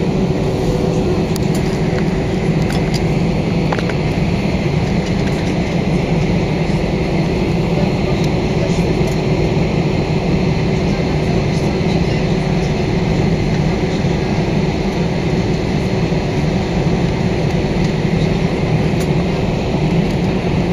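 Airbus A320 engines heard from inside the passenger cabin: a loud, steady drone with a few constant hums over a deep rumble.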